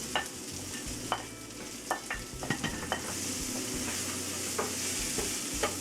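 Mashed potatoes frying in spiced oil in a pan, a steady sizzle that grows stronger about halfway through, while a cooking utensil stirs them, clicking and scraping against the pan a dozen or so times.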